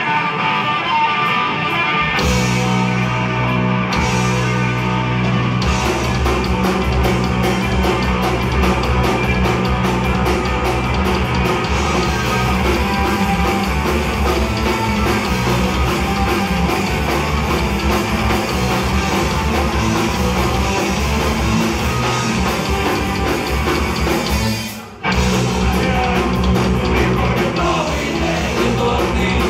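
Live punk rock band playing with distorted electric guitars, bass and drums. It opens thinly, with the full band kicking in about two seconds in, then breaks off for a moment near the end before coming back in.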